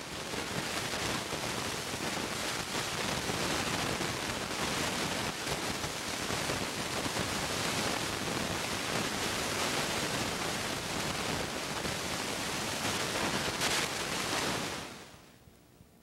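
Steady, even hiss with no tone or rhythm, the noise of an old film transfer with no recorded sound; it starts suddenly and fades out near the end.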